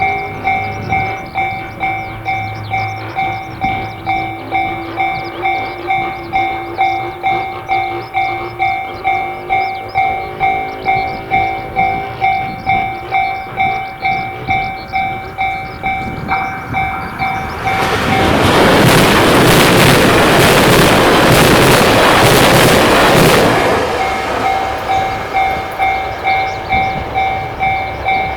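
Japanese railway level-crossing bell ringing its steady "kan-kan" at about two strokes a second. About eighteen seconds in, a train passes over the crossing, its loud rush of wheels and air drowning the bell for some six seconds before the bell is heard again.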